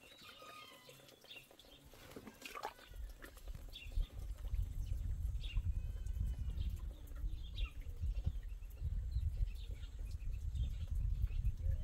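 Short scattered animal or bird calls, with a low, uneven rumble that sets in about three seconds in and becomes the loudest sound.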